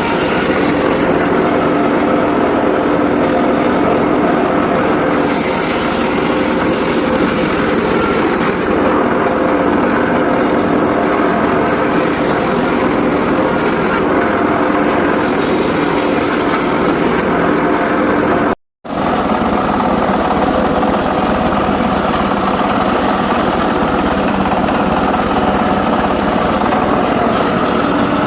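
Home-built circular saw rig running steadily while sawing sengon laut timber: a constant loud mechanical drone with a steady hum, its upper hiss rising and falling every few seconds. The sound cuts out completely for a moment about two-thirds of the way through.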